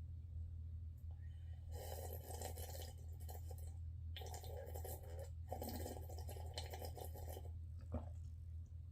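Three long, crackly slurps of hot coffee sucked from a cup, over a steady low hum, with a short click near the end.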